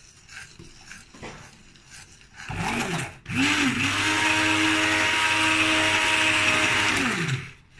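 Electric hand blender blending a thick chocolate-hazelnut mixture in a steel pot: a short burst that spins up and cuts out, then a steady run of about four seconds that winds down and stops near the end.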